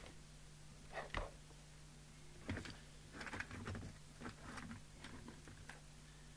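Faint clicks, taps and handling noises from hands working at a repair bench, over a steady low hum.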